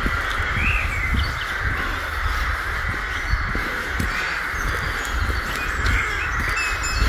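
Many crows cawing at once in a continuous, clamorous din, with footsteps thudding on a dirt path.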